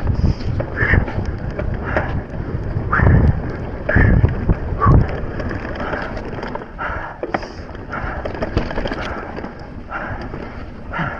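Transition Spur mountain bike ridden down a rough dirt trail: wind buffeting the microphone, with irregular knocks and rattles from the bike over bumps and a few heavier thumps around three to five seconds in.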